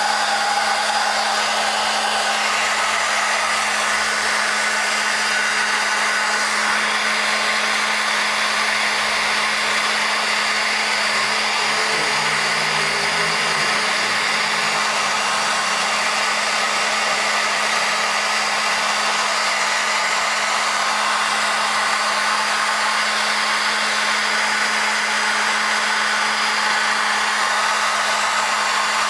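Hair dryer blowing steadily, a constant motor hum under the even noise of the air.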